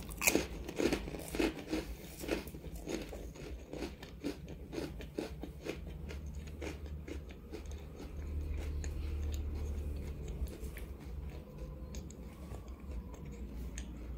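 Crisp crunching bites into a puffed rice cracker close to the microphone, loudest in the first two seconds, then softer chewing that thins out. A low hum swells for a couple of seconds about eight seconds in.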